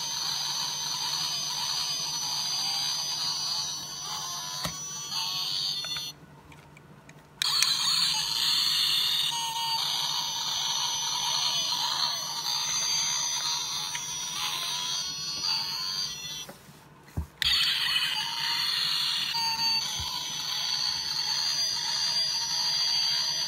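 Built-in sound effects of a Speed Vertex 1/18 scale toy motorcycle playing through its tiny speaker, thin and tinny. The sound cuts out twice, about six and about sixteen seconds in, for roughly a second each time, then starts again.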